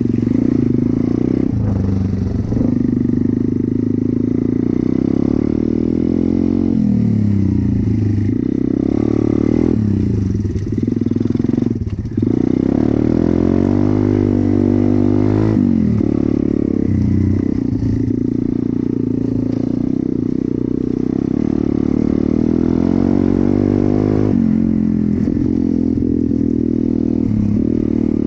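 Pit bike's small single-cylinder four-stroke engine running under way, its revs rising and falling over and over as the throttle is worked.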